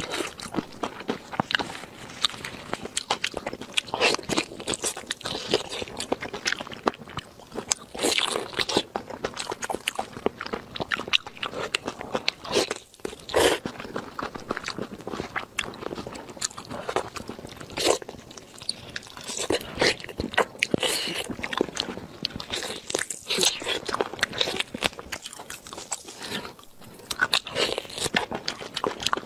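Close-miked eating sounds: biting, chewing and crunching, with wet tearing as gloved hands pull cooked meat apart on the bone. Many sharp, irregular crunches and smacks follow one another throughout.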